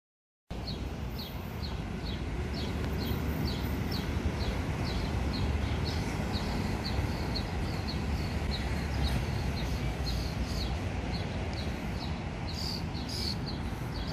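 Outdoor city ambience: a steady low traffic rumble, with short high chirps repeating evenly about twice a second. The sound starts suddenly about half a second in.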